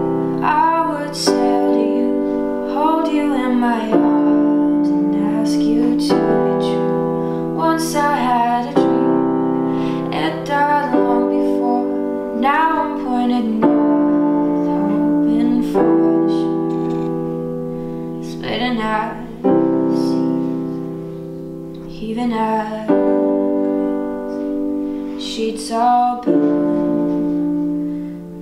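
Electronic keyboard on a piano voice playing a slow instrumental passage: held chords that change about every two seconds, with melody notes above.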